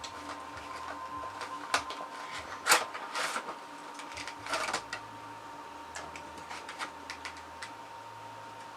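A Funko Pop's cardboard box being opened by hand and the figure taken out of its packaging: scattered clicks, taps and rustles, the loudest about three seconds in, with lighter ticks near the end.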